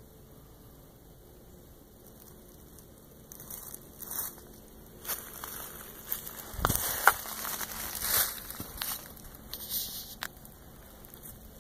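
Footsteps crunching through dry leaf litter and twigs on a forest floor. The irregular crackling steps begin about three seconds in, with a few sharp snaps around the middle, the loudest about seven seconds in.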